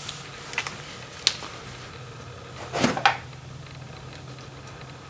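Light clicks and taps of a hex key and small hand tools against the bolts of a motorcycle's countershaft sprocket cover: a few single clicks, then a louder cluster about three seconds in, over a faint steady low hum.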